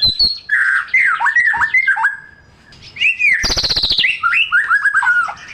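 White-rumped shama (murai batu) in full song: rapid whistled notes sliding downward, a short lull about two seconds in, then a brief harsh rasping note followed by a quick run of descending whistles.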